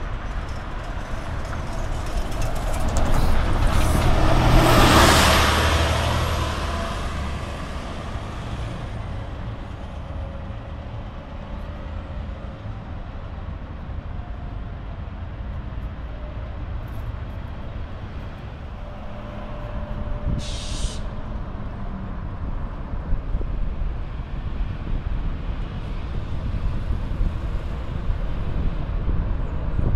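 Street traffic on a city bus corridor: a vehicle passes close about five seconds in, and about twenty seconds in a bus gives a short hiss of air from its brakes.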